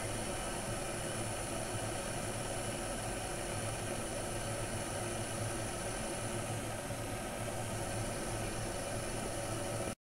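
Green Chef 1.8-litre electric kettle with water and green tea leaves bubbling close to the boil: a steady rushing hiss with a low hum underneath.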